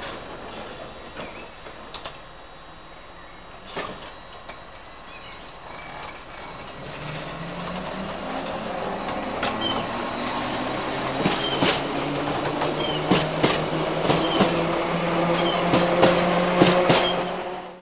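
London Underground 1960 Tube Stock train pulling away: its motor hum rises in pitch as it picks up speed, and the wheels click over the rail joints more and more often as the sound grows louder. It cuts off suddenly at the very end.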